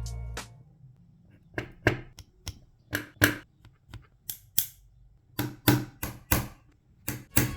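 A series of about fifteen sharp, irregular plastic clicks and snaps, some in quick runs of two or three: Lego Technic pieces being pressed and clicked together by hand.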